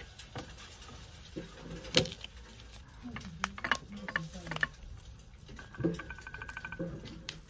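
A passion fruit being squeezed open by hand over a ceramic bowl, its shell and pulp giving a run of irregular clicks and crackles. The loudest is a sharp click about two seconds in.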